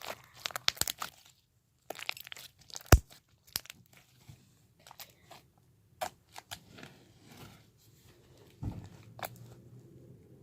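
Jiggly butter slime with foam balls being squished and poked by hand, giving quick irregular clicks and crackles, with a short pause just after a second in and the sharpest click about three seconds in.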